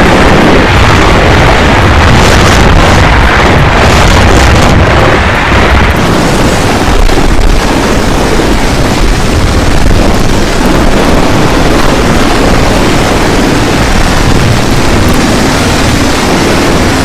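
Typhoon-force wind blowing hard against the microphone: a loud, steady rush with deep, rumbling buffeting. The hiss is harsher for the first few seconds, then settles a little.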